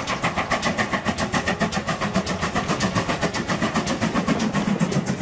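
GWR 2251 'Collett Goods' class 0-6-0 steam locomotive working past under steam, its exhaust beating in a rapid, even rhythm that weakens near the end as the engine passes.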